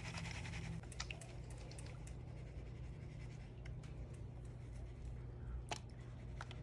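Gold pan being worked in water: a faint swish of water and a few light clicks of gravel against the pan's riffles, over a steady low hum.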